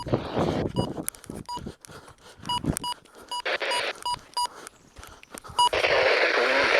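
Electronic key-press beeps: about nine short, identical high beeps at irregular intervals, each with a sharp button click, as buttons on a radio are pressed. Near the end a loud radio hiss with broadcast sound cuts in.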